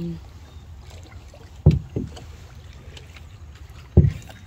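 A canoe being paddled, with dull knocks of the paddle against the hull: two close together about a second and a half in and one near the end, over soft water noise.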